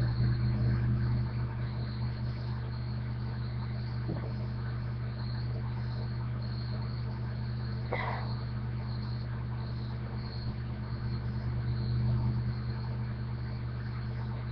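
Steady low electrical hum with a faint high-pitched whine over it, and one brief faint sound about eight seconds in.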